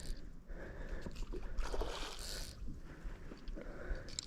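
Water sloshing and splashing against the side of a small fishing boat as a hooked redfish is fought close in, in uneven surges.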